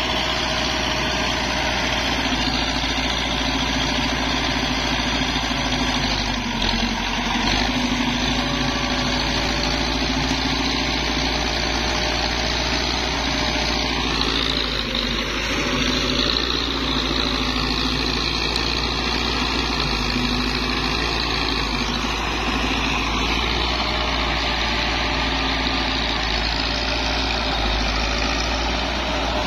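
Belarus tractor's diesel engine running steadily under load as it drags a disc harrow through dry soil, its pump freshly redone. The engine note shifts about halfway through.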